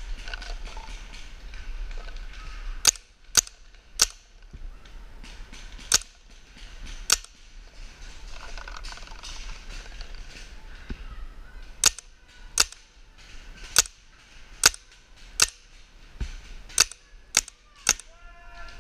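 Paintball markers firing single shots: about a dozen sharp pops at irregular intervals, five spread through the first seven seconds and a quicker run of eight over the last seven.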